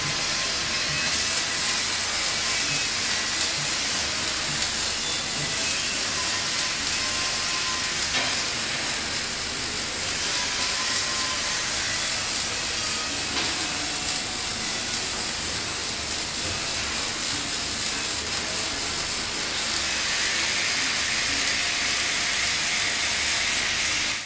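Robotic MIG welding torch arc crackling and hissing steadily as it lays a weld bead on steel.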